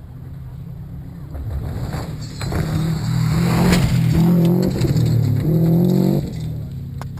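Subaru Impreza STI rally car's turbocharged flat-four engine revving hard as the car approaches and passes at speed on a gravel stage. It builds to its loudest as it goes by, then drops off sharply about six seconds in.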